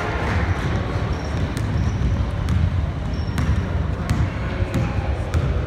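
Basketball being dribbled on a hardwood gym floor: scattered sharp bounces over a steady low murmur of voices in the gym.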